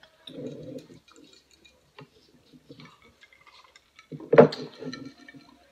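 Light clicks and taps of spoons and glasses on a table, then a louder drinking sound about four seconds in as drinks are sipped from glasses.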